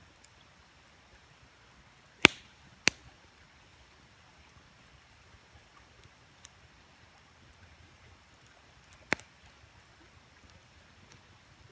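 Wood campfire crackling: scattered faint ticks and three sharp pops, two close together about two and three seconds in and one more near nine seconds, over a faint steady hiss.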